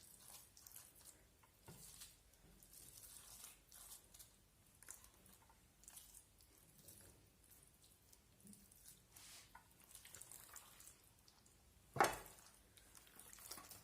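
Faint wet squelching and small clicks of hands pressing a moist stuffing into a raw chicken. One sharper knock near the end.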